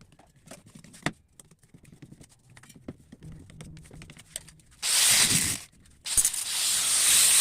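Woodworking: a few seconds of light clicks and knocks of wood being handled, then two loud rushing strokes of a tool working wood, each about a second long.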